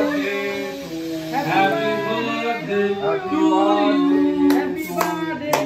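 Several people singing a birthday song together in held, melodic notes, with hand claps starting near the end.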